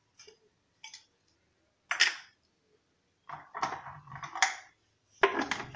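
A series of sharp clinks and knocks of kitchen utensils: a teaspoon tapping against the blender jar as salt is added, and the small salt jar set down on the worktop. There is a cluster of knocks in the middle and the loudest clinks about two seconds in and near the end.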